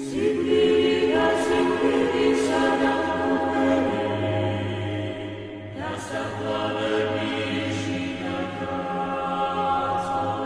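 Unaccompanied choral chant: voices holding long sustained notes over a low steady drone. A new passage starts at the beginning, and the chord shifts about six seconds in.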